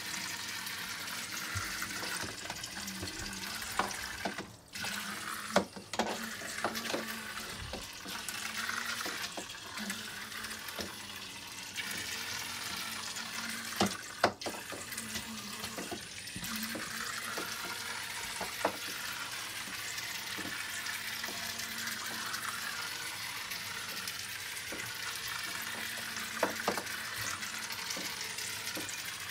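Zuru Micro Boats toy speedboats running laps in a plastic water track, making a steady hiss of churning, splashing water, with a few sharp knocks now and then.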